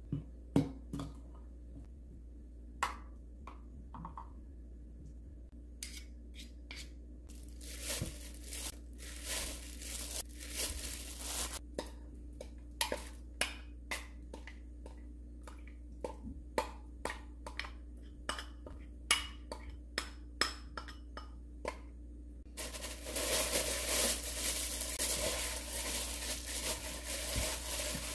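Metal spoon clinking and scraping against a glass bowl while stirring a thick chili-paste sauce and scraping it out onto sliced pork. About two-thirds through, this gives way to a continuous rustle and squish of a plastic-gloved hand mixing the raw pork in the sauce.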